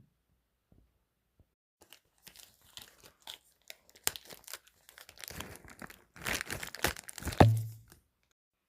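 Plastic packaging crinkling and rustling as items are handled, in irregular bursts, with a sharp knock near the end.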